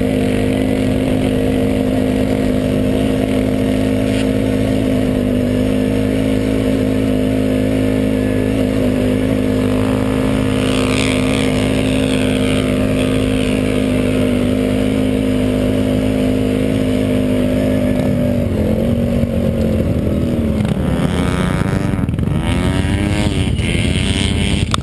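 ATV engine running hard at steady high revs, under load on a long sand hill climb. From about 18 seconds in, the engine note swings up and down repeatedly as the throttle and revs rise and fall.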